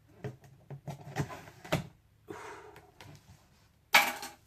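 Cardboard box and packing being handled: a string of light knocks and rustles, a short scrape, and a louder sudden rustle near the end.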